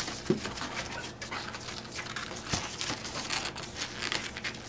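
Latex twisting balloons, a long white 160 tied to a small yellow balloon, being handled and rubbed by hand, giving scattered short squeaks and crinkly rubbing noises.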